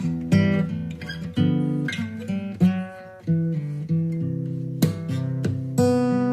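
Background music of acoustic guitar, chords strummed and plucked at an easy pace, each ringing out and fading before the next.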